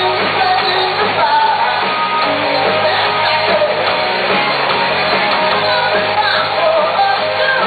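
Rock band playing live with singing over electric guitar, the sound dense and unbroken.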